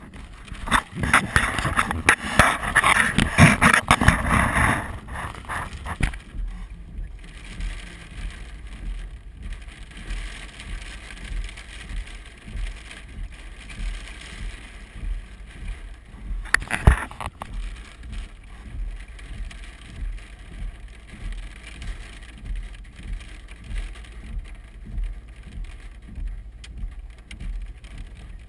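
Hail drumming on a vehicle heard from inside the cabin: a loud, dense clatter for the first few seconds that then eases to a lighter patter over a regular low pulse. One sharp, loud strike comes about seventeen seconds in.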